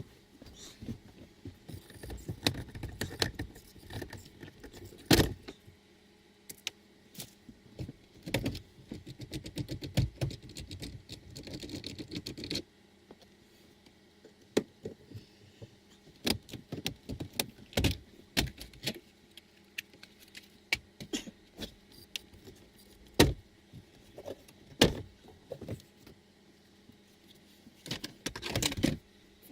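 Plastic centre-console trim of a Toyota Voxy/Noah being worked loose and handled: many sharp clicks and knocks, with rustling handling over roughly the first twelve seconds and scattered single knocks after.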